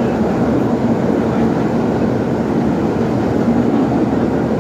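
Vintage R1/R9 subway train running along a station platform, heard from inside the car: a steady rumble of wheels on rail and running gear, with a faint steady hum under it.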